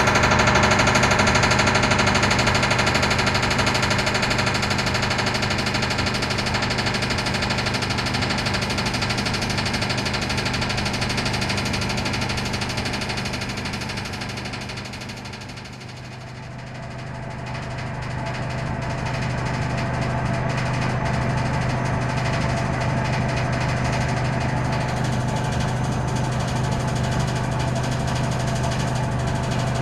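Laimet HS-21 wood chipper running, a steady mechanical drone with a fixed hum. It fades down to a low point about halfway through, then comes back up and holds steady.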